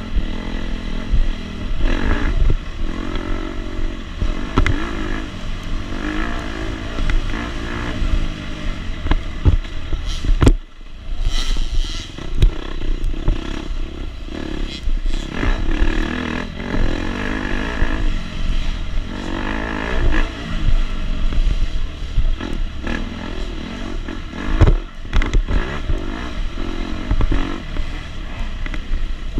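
KTM 250 SX two-stroke dirt bike engine racing, its revs climbing and falling over and over as the throttle is worked. It cuts out sharply about ten seconds in, then picks up again, with scattered knocks and clatter throughout.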